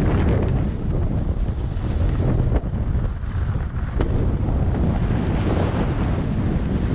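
Heavy wind buffeting the microphone: a dense, fluttering low rumble with a hiss above it. Two faint clicks come in the middle, a little over a second apart.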